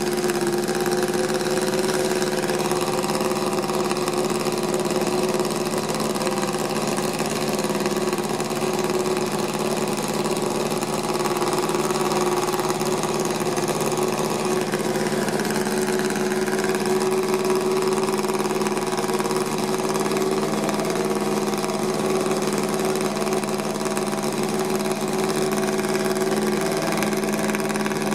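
1961 Honda RC143 125cc four-stroke twin-cylinder racing engine running steadily at idle while being warmed up, its exhaust note holding one even pitch.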